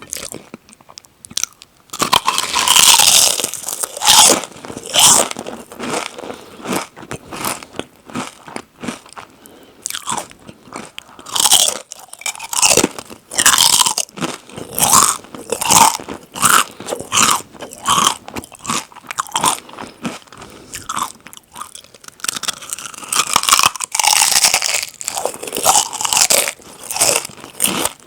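Close-miked crunching and chewing of crisp chips: sharp, bright crunches in quick runs of chews, with heavier bites about two seconds in and again near the end.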